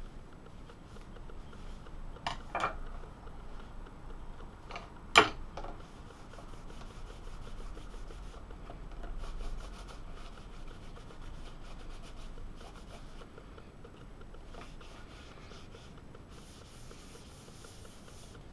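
Paper towel rubbing vegetable oil into a leather knife sheath and over a bamboo cutting board: a soft, steady rubbing and wiping. A few light knocks come about two seconds in, and one sharp knock about five seconds in.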